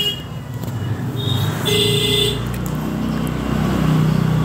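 Hilsa fish head pieces frying in hot oil in a kadai, sizzling steadily, the sizzle growing about halfway through. Short vehicle-horn toots sound from outside about a second in, over a low steady hum.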